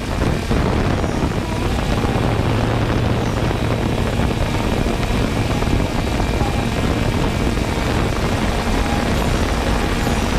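Quadcopter drone's motors and propellers running steadily in flight: a continuous hum with rushing noise, picked up by the camera the 3DR Solo carries.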